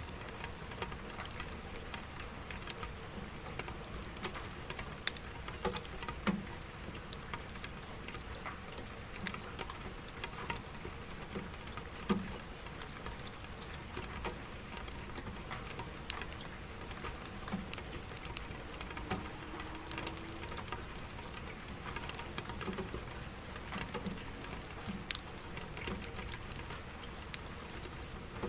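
Steady rain falling, a continuous hiss with many individual drops pattering and ticking at irregular moments.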